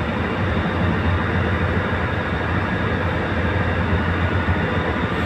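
Engine of the boat being filmed from, running steadily under way: a constant low hum with a broad rush of wind and water over it.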